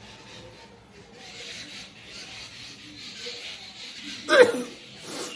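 A person's loud voiced sneeze about four seconds in, an 'achoo' that falls in pitch, after a few seconds of breathy build-up; a short sharp sniff or noise follows near the end.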